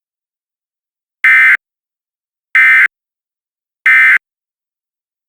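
Emergency Alert System end-of-message code: three short, loud, buzzy data bursts about 1.3 seconds apart, the digital signal that closes the alert.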